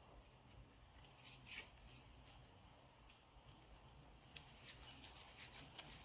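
Faint, scattered light clicks and scrapes of small metal parts being handled as a new adjuster plate is fitted into an M156 camshaft adjuster, with a few clicks about a second and a half in and several more near the end.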